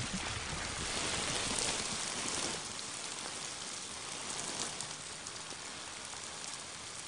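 Liquid spraying from a petrol-pump hose and spattering down like rain, a steady hiss that eases off a little after about two and a half seconds.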